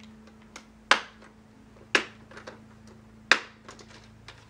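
Plastic screen bezel of a Lenovo IdeaPad Z570 laptop being pried off by hand, its snap-in clips popping loose: three sharp clicks about a second apart, then a few lighter ticks, over a faint steady hum.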